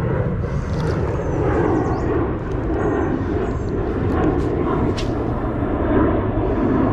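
Airplane droning overhead, a steady rumble, with small birds chirping faintly above it and a couple of short, sharp clicks about five seconds in and at the end.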